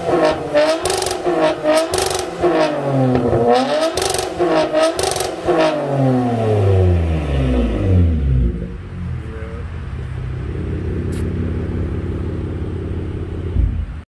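Toyota Camry with its muffler and both resonators deleted, revved in several quick blips, then the revs fall away and it settles to a steady idle about eight seconds in.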